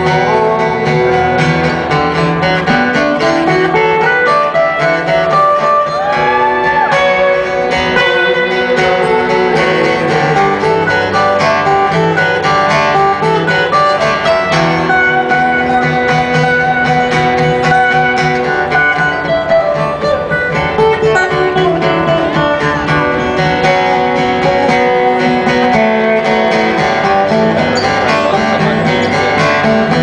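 Two acoustic guitars playing live without vocals: chords under a busy picked lead line, with a note bent in pitch about six seconds in.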